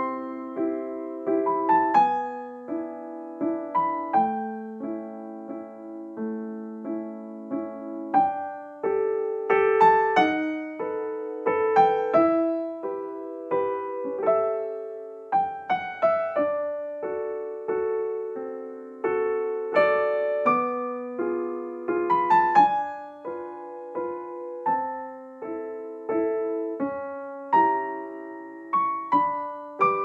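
Background music: a solo piano playing held chords and single notes, with a new chord or note struck every second or so.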